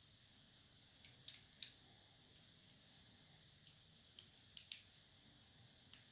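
A few small, sharp clicks from handling a disc-detainer padlock and its tools, in two clusters of three: about a second in and again past four seconds, over near silence.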